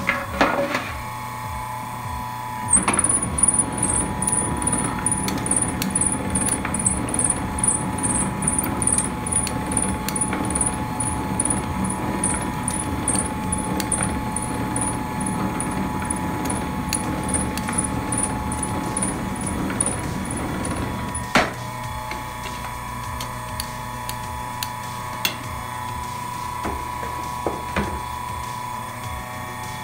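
Soba noodle-making machine running, with a rhythmic high tick about twice a second over a steady hum. It stops with a click about 21 seconds in, leaving only the hum.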